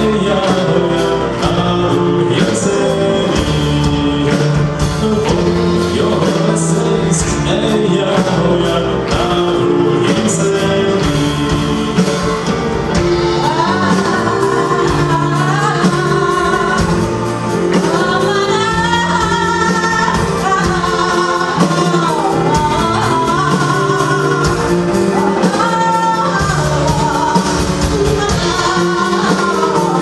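Live rock band with a string orchestra playing a song, a man singing lead at first and a woman taking over the vocal with a higher melody from a little before halfway through.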